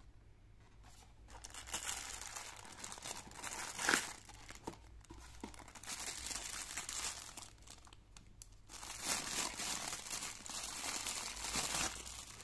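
Thin clear plastic wrapping bag crinkling as it is handled and pulled off a wristwatch, in three spells with short pauses between, the loudest crackle about four seconds in.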